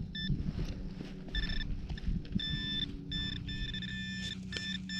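Metal detector sounding a high-pitched target tone in broken, repeated beeps of uneven length as the search coil passes over buried metal, over a steady low drone.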